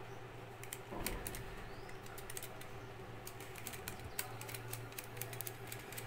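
Light, irregular metallic clicks and taps of screws and the steel motor housing as screws are fitted by hand into a table fan motor's back cover, over a steady low hum.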